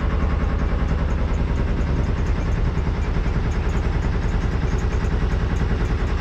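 Boat engine running steadily under way, a low even drone with a fast regular pulse.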